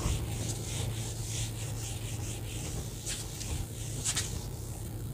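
Whiteboard eraser being rubbed back and forth across a dry-erase board, a quick run of repeated rubbing swishes, with two sharper strokes near the end. A steady low hum sits underneath.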